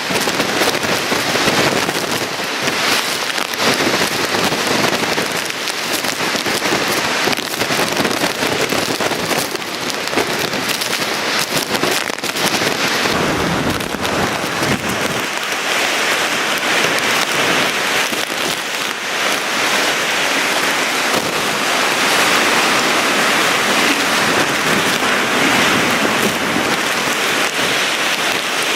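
Hurricane rain: a loud, steady rush with many sharp crackles through the first half, growing smoother from about halfway in.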